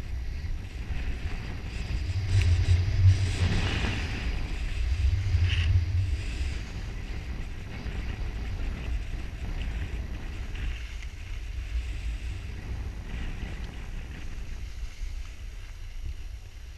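Wind buffeting a pole-held action camera's microphone as a skier glides downhill, with skis hissing and scraping over packed snow. Louder for a few seconds, about two to six seconds in.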